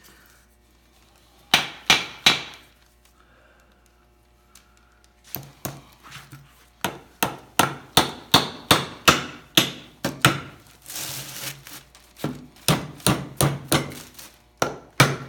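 Hammer driving steel nails through pre-drilled holes into basswood and mahogany blocks, nailing them together. A few strikes, a pause of a few seconds, then a quick run of strikes about two to three a second, with a brief break near the end.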